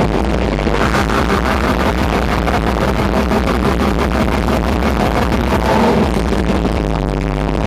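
Black metal band playing live at full volume: distorted guitars and fast drumming in a dense, unbroken wall of sound, with the vocalist's screamed vocals into the microphone.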